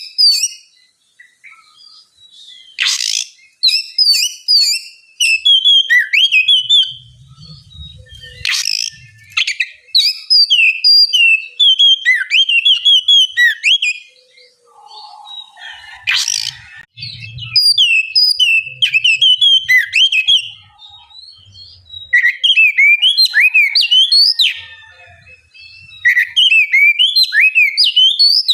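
Oriental magpie-robin (kacer) singing in runs of quick, sweeping whistled notes, each run a few seconds long with short pauses between. A few short harsh sounds stand out between runs.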